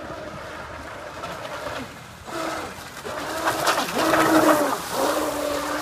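Radio-controlled speedboat running fast across the water. Its motor makes a steady high-pitched drone over the hiss of spray, getting louder as the boat passes close about three and a half seconds in. The drone drops slightly in pitch as the boat moves away.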